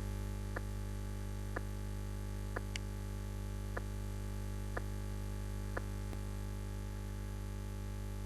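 Stethoscope recording of heartbeats demonstrating a fourth heart sound (S4 gallop): faint beats about once a second over a steady hum. The S4 is a low-pitched extra sound just before the first heart sound, the sign of a stiff, poorly compliant left ventricle.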